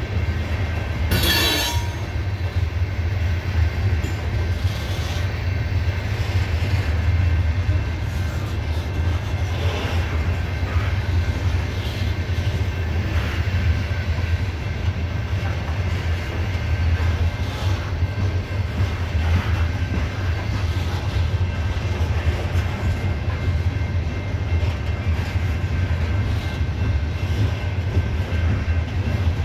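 CSX coal train's hopper cars rolling past close by: a steady, heavy low rumble of wheels on rail. There is a brief sharp noise about a second in.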